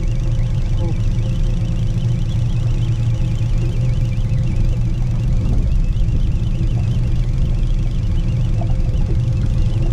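Boat's outboard motor running steadily at trolling speed, a constant low hum.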